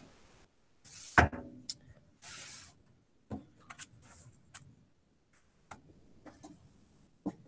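Desk handling noises: scattered clicks and taps, a heavier thump about a second in, and a couple of short rustles.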